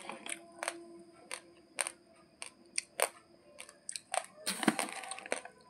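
Raw basmati rice grains crunching as they are chewed: sharp, irregular cracks a few times a second, with a denser run of crackling near the end.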